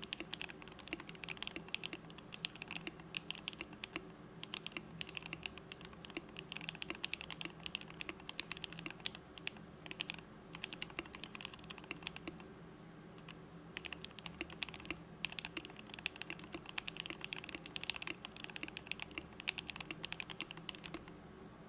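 Steady typing on a custom 60% mechanical keyboard with lubed JWK Alpaca linear switches, lubed stabilizers and PBT keycaps: a dense run of rapid keystrokes, with a short pause about twelve seconds in.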